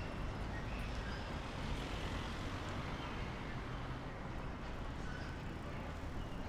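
Steady low rumble of vehicles amid city background noise, even throughout, with a few faint short high tones over it.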